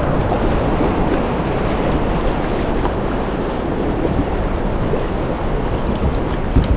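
Fast, turbulent river water rushing around a kayak, with wind buffeting the microphone. A couple of low bumps near the end.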